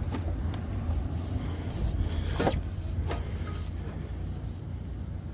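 A few short knocks and clunks as a car intercooler is pushed up past the radiator into its mounts, the loudest about halfway through, over a steady low rumble.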